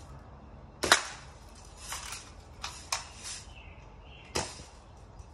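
Daisy Red Ryder lever-action BB gun firing once about a second in, a sharp crack, followed by several quieter clicks and knocks.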